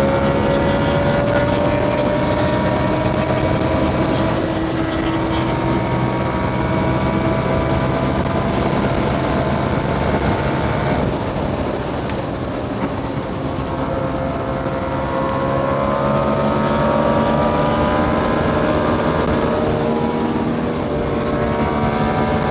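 KTM 890 Duke R's parallel-twin engine running through a catless Austin Racing exhaust under load. Its pitch climbs slowly, drops off about halfway, then pulls up again and eases near the end, over steady wind rush.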